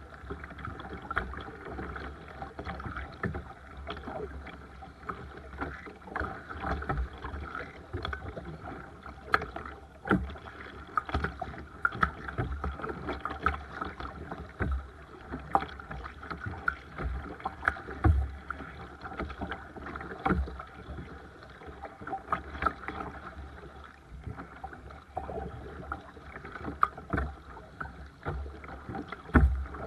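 A Seabird Discovery sea kayak being paddled on the sea: water splashing and lapping against the hull, with irregular paddle splashes and light knocks.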